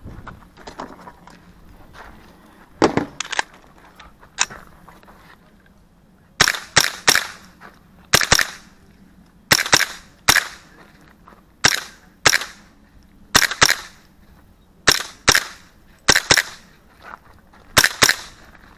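AR-style carbine with a CMMG .22 LR conversion firing a string of sharp shots, mostly in quick pairs, starting about six seconds in. Before the shots come a few quieter clicks and knocks.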